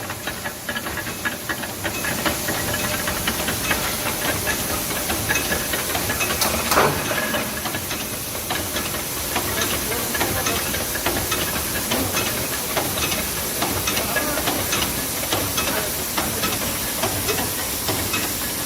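Plastic bag sealing machine running: a steady hiss with many small clicks and ticks, and one brief louder rasp about seven seconds in.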